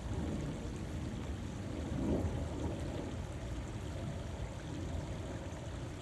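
Water running steadily with a constant rushing, a little fuller about two seconds in.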